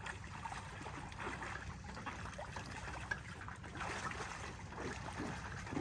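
Lake water sloshing and splashing in small, irregular bursts around a person wading waist-deep while working foam floats under a boat lift.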